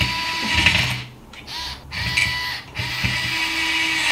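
A Bosch 3.6 V cordless screwdriver's small motor running at its slow setting, driving a screw in to tighten it. It runs in two spells with a short break about a second in.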